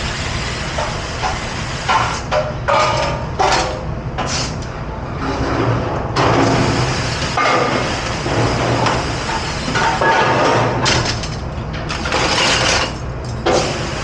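Commercial pre-rinse sprayer blasting water onto a stainless steel sink and cutlery in repeated surges, with metal utensils clattering against each other and the steel, over a steady low hum of kitchen machinery.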